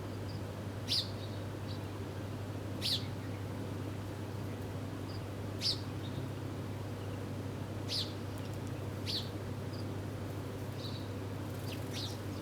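Small wild birds giving short, sharp chirps, about six spaced over the stretch, each a quick downward-sweeping note, over a steady low hum.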